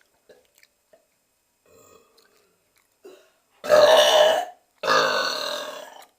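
A girl belching loudly twice in a row: the first burp is just under a second long, and the second is longer and fades away.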